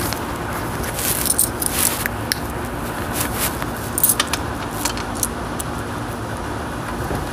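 Steady low background hum with scattered light clicks and jingles, in small clusters every second or two.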